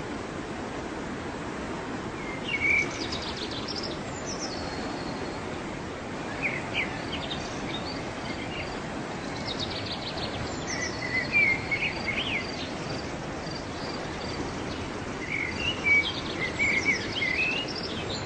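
Waterfall rushing steadily, with a songbird singing three bouts of quick chirps and trills over it.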